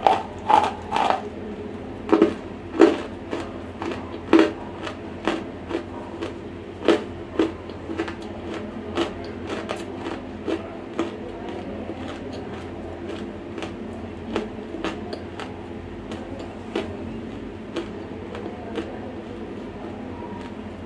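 Close-miked crunching of dry, semi-roasted Nakumatt clay being bitten and chewed. Several loud crunches in the first five seconds, then chewing crunches about one a second, growing softer and sparser.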